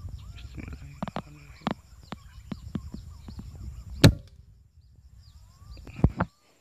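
Scattered clicks and knocks over a low rumble, then a single sharp crack about four seconds in, which is the loudest sound: a shot from an air rifle at a bird.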